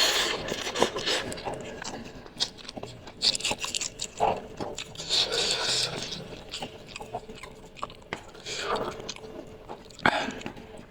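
Close-miked eating of spicy instant noodles: wet chewing and slurping with many small mouth clicks, and several breathy hisses of air in between.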